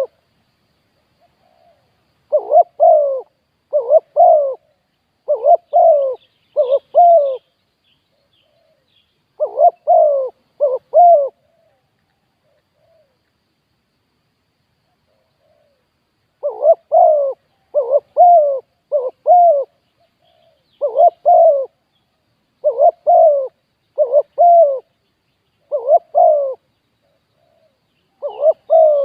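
Spotted dove cooing loudly and repeatedly, in phrases of two or three notes with a few seconds' pause between them and a longer lull in the middle. Faint high chirps of small birds come in now and then.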